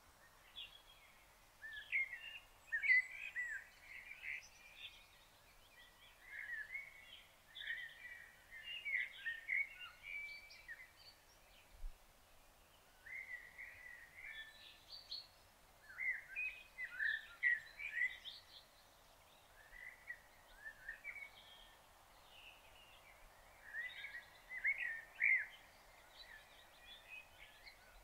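Wild songbirds singing: clusters of quick, high chirping phrases every few seconds over a faint steady background hiss.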